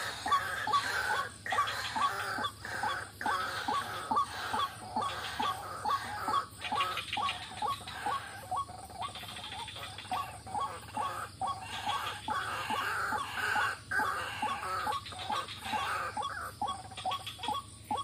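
White-breasted waterhen (ruak-ruak) lure call: short call notes repeated steadily, about two to three a second, played to draw the birds in.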